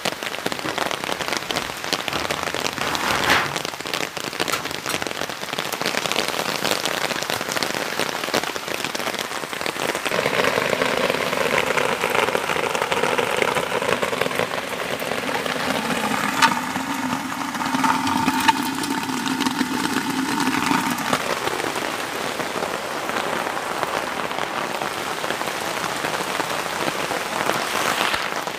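Steady rain falling on wet ground, a continuous hiss.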